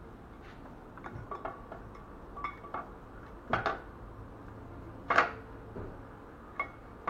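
Steel engine parts clinking and knocking against each other: a string of short, sharp metal clicks, a few with a brief ringing tone, the loudest about five seconds in, as a camshaft is handled and set into a ZMZ 409 cylinder head.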